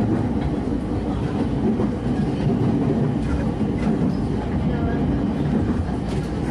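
E231-series electric commuter train running at speed, heard from inside a motor car: a steady rumble of wheels on the rails, with rail-joint clacks.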